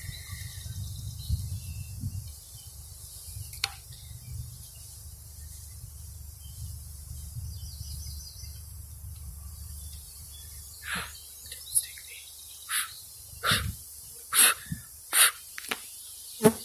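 A steady low rumble of wind on the microphone. Then, past the middle, a run of about eight sharp knocks as the wooden bee package is bumped and shaken to dump the bees onto the hive frames.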